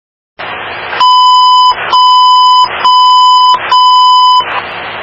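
Electronic alert tone beeping four times, each long beep at one steady pitch, over a steady hiss that ends in a sharp click.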